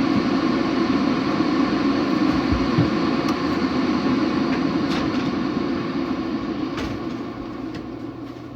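Chulux single-serve K-cup coffee maker rumbling steadily as it heats and pumps water before brewing, with a few faint clicks; the rumble fades over the last couple of seconds.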